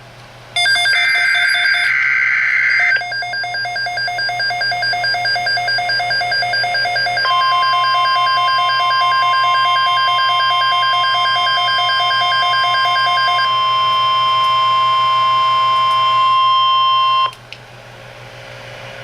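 NOAA Weather Radio Emergency Alert System activation. It opens with a screeching SAME digital header burst, then an alarm beeps rapidly. About seven seconds in, the steady 1050 Hz weather-radio warning alarm tone starts and runs for about ten seconds before cutting off sharply, leaving radio hiss.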